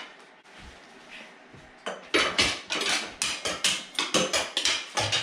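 Knee-hockey sticks clacking rapidly against each other and the ball in a scramble for possession, about five sharp hits a second, starting about two seconds in after a quieter stretch.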